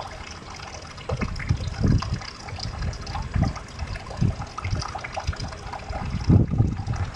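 Water trickling and splashing steadily in a garden pond, over irregular low rumbles that swell and fade, the strongest just after six seconds in.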